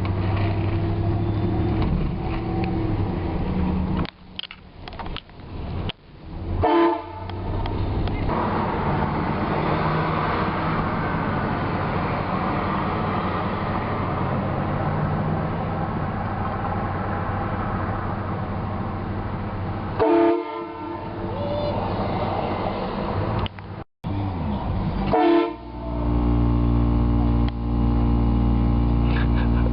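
Air train horn sounding a chord in short blasts about seven, twenty and twenty-five seconds in, then a long blast over the last four seconds. A steady rushing vehicle noise fills the gaps between blasts.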